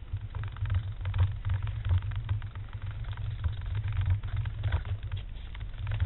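Wind rumbling on a small onboard camera's microphone, with scattered faint clicks and rustles as the branch is handled.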